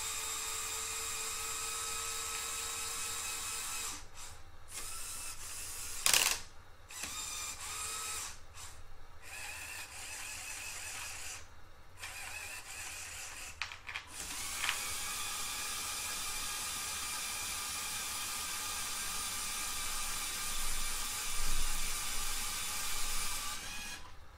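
Electric motors of a LEGO Technic Liebherr R 9800 excavator whirring through their gear trains as the model calibrates itself, driving each actuator to its end stop. The whine stops and restarts several times, with a sharp click about six seconds in.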